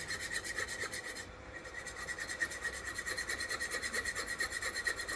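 A metal bar is pressed against a fast-spinning steel workpiece and rubs on it in friction welding, making a fast, rhythmic rasping scrape over a steady high whine. The scrape briefly lets up about a second in.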